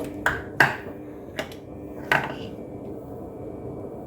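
Kitchen utensils and containers being handled on a counter: four sharp clinks and knocks in the first two and a half seconds, each ringing briefly.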